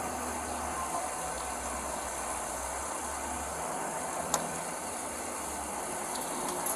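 Motor vehicle engine idling with a steady low hum, and a single faint click a little past the middle.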